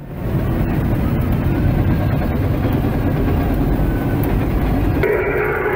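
Bulldozer's diesel engine running, heard from inside the cab as a steady low rumble.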